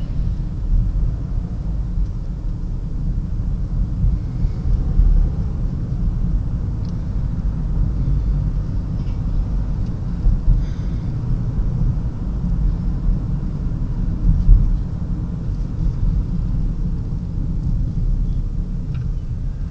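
Steady low rumble of a moving car's road and wind noise.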